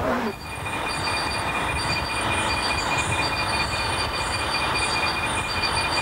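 Night insect chorus in tropical mountain forest: several steady, high-pitched trills held over a constant hiss.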